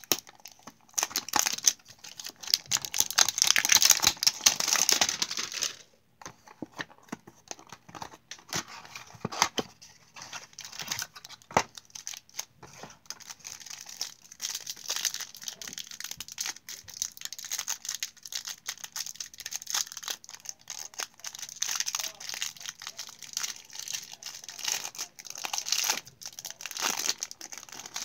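Packaging of a Donruss Optic football hanger box of trading cards being torn open and crinkled, loudest for a few seconds near the start, then a long run of rustling and crinkling as the cards are handled.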